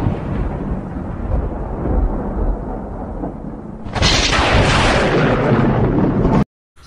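Loud rumbling sound effect, with a second crash of hissing noise starting suddenly about four seconds in, then cut off abruptly.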